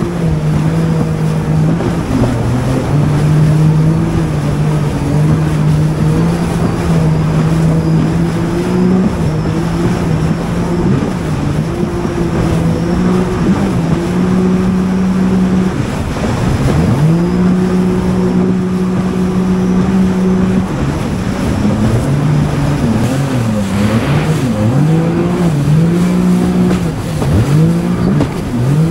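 Jet ski engine running under way, its note held steady for stretches and repeatedly dropping and climbing back as the throttle is eased and opened, with sharp dips about 16 seconds in and near the end. A steady rush of water and wind noise runs underneath.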